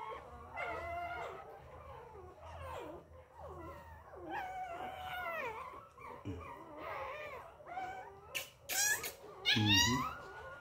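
Two-week-old puppies whining and crying in high, wavering whimpers that rise and fall with hardly a break, louder near the end.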